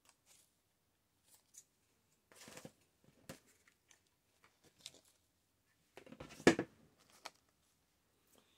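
Faint rustles and light clicks of paper and fabric craft scraps being handled, the loudest rustle about six and a half seconds in.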